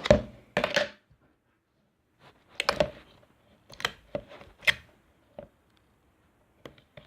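Slime and its plastic container being handled, giving a series of separate sharp clicks and crackles, loudest in the first second.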